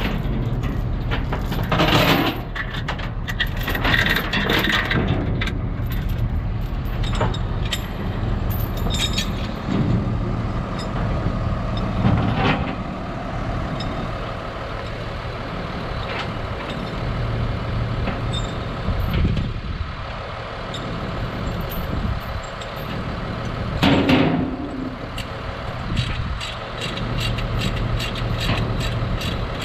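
An engine idling steadily, with scattered knocks and clatter. The loudest knocks come about two, twelve and twenty-four seconds in.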